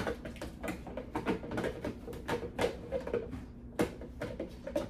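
Hard plastic parts of a Ninja Creami ice cream maker clicking and knocking together as they are handled and twisted, trying to fit the lid and container; irregular clicks with a sharper knock at the start.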